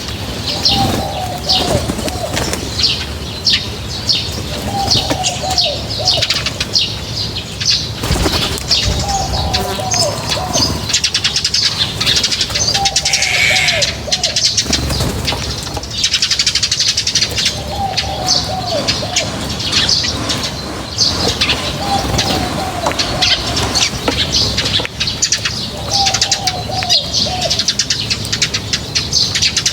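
A group of birds chirping and twittering without pause, with a lower, phrased call repeated about every four seconds.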